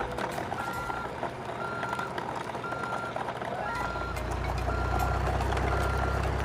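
Reversing beeper sounding one steady beep about every second. A low steady rumble joins a little past halfway, with scattered small clicks.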